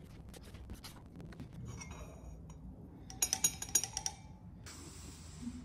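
Metal electrode rods of a plug-in water electrolyzer clinking against glass tumblers as the device is handled. A few light taps are followed, a little past halfway, by a quick cluster of sharper clinks.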